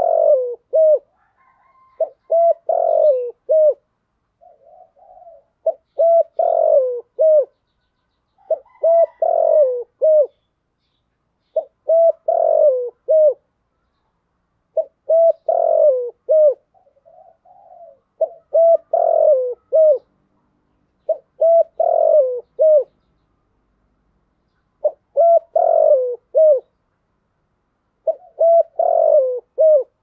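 Spotted dove singing its cooing song: a phrase of several quick coos repeated about every three seconds, with softer low coos between some phrases.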